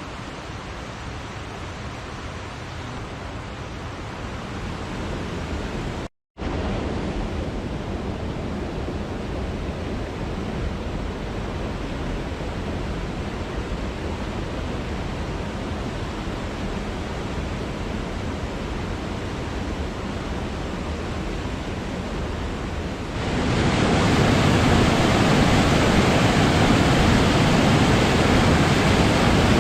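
Steady rush of falling water from a waterfall. It cuts out completely for a moment about six seconds in, and near the end it steps up to a louder, fuller rush.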